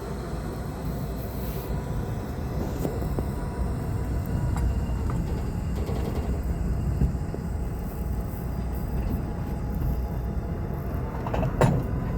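Steady low rumble of the Keewatin Railway train as it arrives, with a few light clanks, the loudest near the end.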